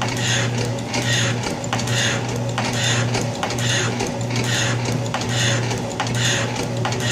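Atlas metal shaper taking a 20-thousandths cut on a cast box bed. The ram strokes back and forth about eight times, each cutting stroke a scraping hiss of the tool through the casting over a steady motor hum, with a sharp click of the feed ratchet between strokes.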